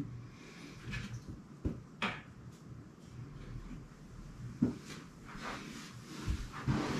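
Light handling noise: a few short knocks and clatters as objects are picked up, moved and set down, the sharpest about two seconds in, near five seconds and near the end.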